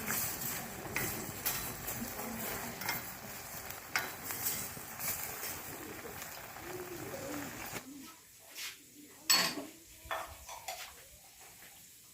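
Cooking sounds: a steady sizzle with utensils clinking against a pot or pan. The sizzle cuts off suddenly about eight seconds in, leaving a few clinks and one sharp knock, the loudest sound here.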